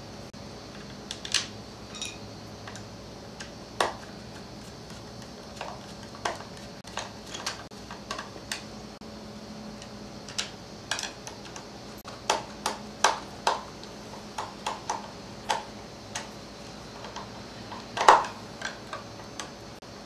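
Irregular clicks, taps and knocks of hard plastic and metal parts being handled and fitted together on a string trimmer during reassembly, with one louder knock near the end.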